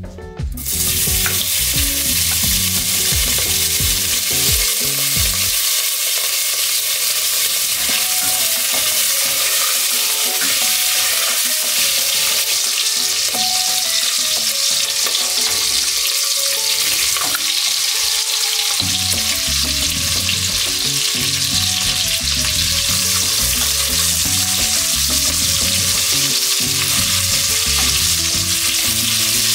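Diced bacon frying in hot lard in a stainless steel pot, a steady sizzle with a wooden spoon stirring, and diced potatoes frying along with it later on. The sizzle starts suddenly about half a second in and stays even.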